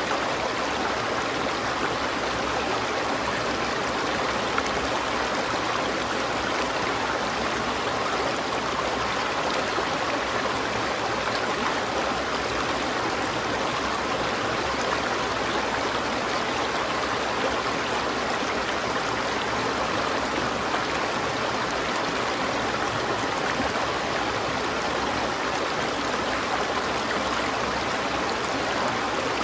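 River water flowing steadily, an even rush of water with no breaks or changes.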